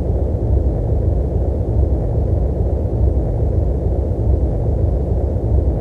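Loud, steady low rumbling noise, like muffled static, holding level without change.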